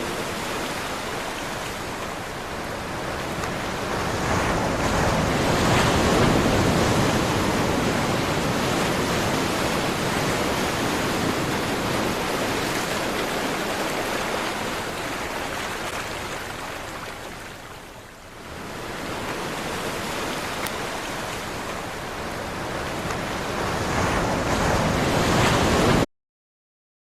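A dense rushing noise that swells about six seconds in, dips briefly around eighteen seconds, builds again and cuts off suddenly near the end.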